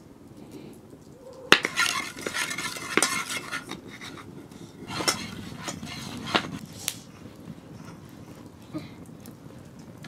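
A metal spoon stirring and scraping around a steel pot of oily spice paste, with sharp clinks of spoon on metal and light knife taps on a wooden chopping board. After a quiet first second and a half, a burst of scraping lasts about two seconds, followed by scattered single clinks.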